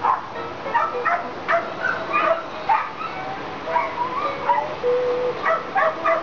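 Rescue dogs in kennels barking and yipping in quick succession, about two calls a second, with one drawn-out whine a little past the middle.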